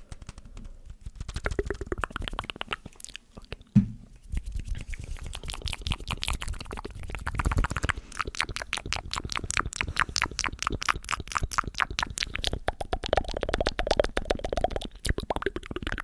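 ASMR mouth sounds close to the microphone: rapid wet clicks and smacks of the lips and tongue, with one sharp loud knock about four seconds in.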